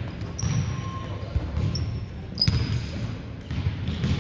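Indoor volleyball play: the ball is struck sharply a few times and sneakers give short high squeaks on the gym floor.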